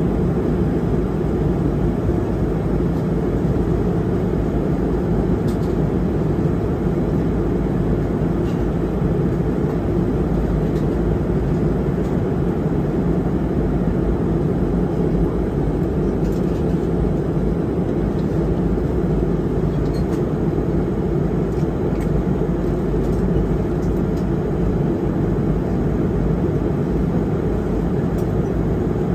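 Steady cabin noise of an airliner in flight: an even, low drone of engines and rushing air heard inside the cabin by the window.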